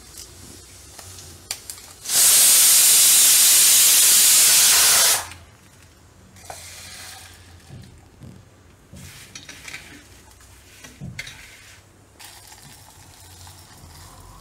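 Pressure cooker whistle on a cooker of chickpeas venting steam: a loud hiss that starts about two seconds in, lasts about three seconds and cuts off sharply. Afterwards there are light rattles and clinks of whole dried spices and seeds being dropped into a steel mixer jar.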